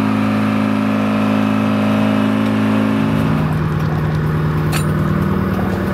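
Telehandler's diesel engine running steadily at raised revs, then dropping to a lower, rougher pitch about three seconds in. A couple of sharp metallic clinks come near the end.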